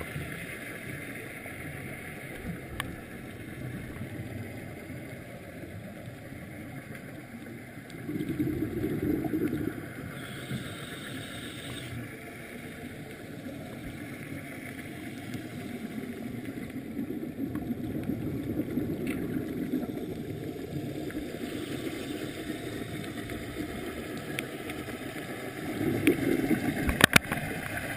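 Muffled underwater ambient noise picked up through a diving camera's waterproof housing: a steady low rush, swelling louder twice, about a third of the way in and near the end.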